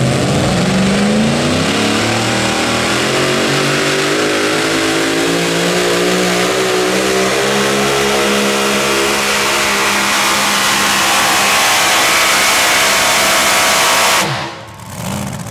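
Super modified 4WD pulling truck's engine at full throttle under load on a pull. Its pitch climbs over the first second or so, then holds high and steady before the sound drops off abruptly near the end.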